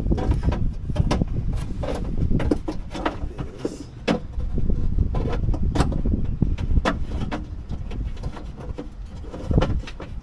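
Clicks and rattles of wiring and plastic connectors being handled and pushed through a hole in a Jeep's body, over a steady low rumble.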